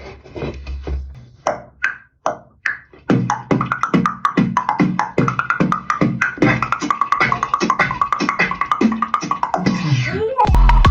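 Vocal beatboxing: a few separate sharp percussive mouth sounds, then from about three seconds in a fast, steady beat with a pitched hum carried over it. Near the end a heavy, deep bass pulse comes in.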